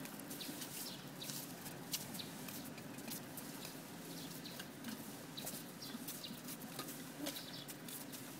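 Outdoor street ambience: a low steady background hum with many short, irregular clicks and a few small high chirps.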